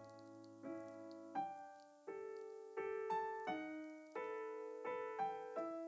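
Background piano music: a slow melody of single struck notes, each fading before the next.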